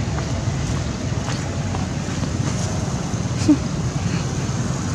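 Wind buffeting the microphone, a steady low rumble, with one brief squeak about three and a half seconds in.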